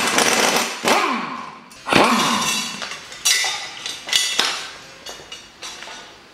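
Impact wrench hammering in short bursts as it undoes flywheel bolts held with sealant, its motor winding down after a couple of the bursts. This is followed by sharper metallic clanks and clinks as the flywheel comes off the crankshaft.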